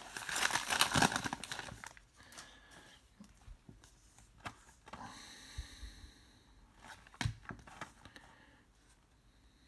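Foil trading-card pack wrapper crinkling loudly as it is torn open, then quieter rustling and light clicks of the cards being handled and slid apart, fading out near the end.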